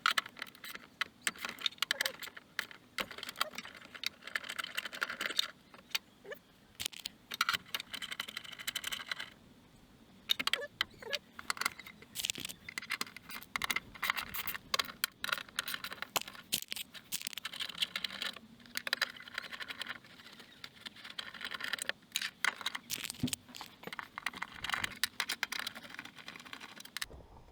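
Hand tools and small metal parts clicking and rattling irregularly, with a couple of short pauses, during interior disassembly of a car.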